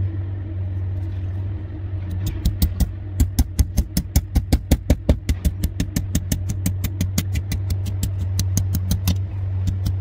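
Benchmade Freek folding knife blade shaving and scraping down a wooden stick in quick, regular strokes, about five a second. The strokes start about two seconds in and ease off near the end, over a steady low engine hum.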